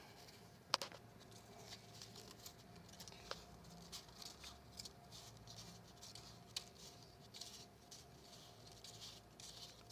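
US $100 paper banknotes being counted out by hand, each bill flicked off the stack and dropped onto the table: a faint run of soft paper flicks, about one or two a second.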